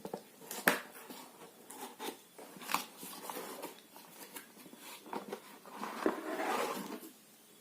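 Handling noise from a plastic hair dryer being picked up and turned over: scattered sharp clicks and taps, the loudest under a second in, and a short rustle around two-thirds of the way through. The dryer is not running.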